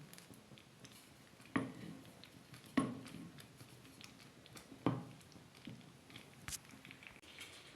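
Three separate knocks, the second the loudest, each dying away quickly, then a sharp faint click near the end, over quiet room tone.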